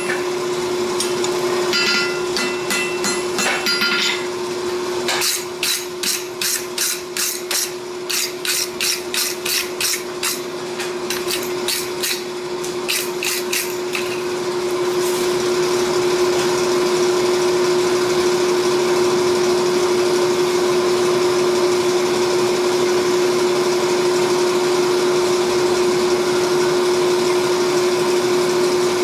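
Hand hammer striking hot steel on an anvil during forging, about two blows a second for roughly ten seconds over a steady hum. About halfway through, the blows stop and a steady rushing noise takes over.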